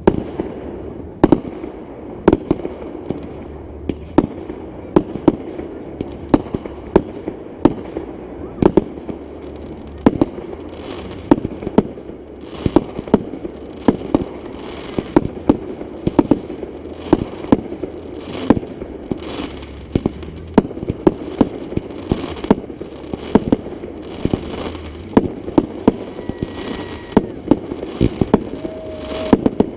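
Fireworks display: shells bursting in a steady, irregular run of sharp bangs, about one or two a second, over a continuous haze of noise between them.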